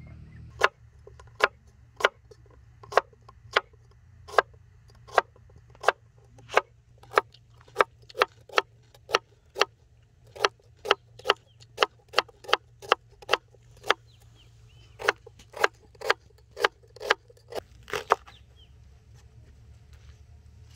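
Kitchen knife slicing through a white radish and striking a wooden cutting board, a steady run of sharp chops about two a second with a short pause partway, stopping shortly before the end.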